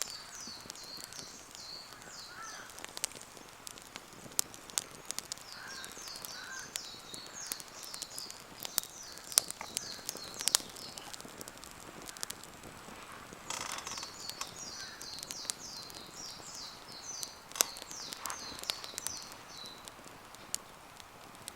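Wood campfire crackling with scattered sharp pops, while a songbird sings rapid high twittering phrases on and off.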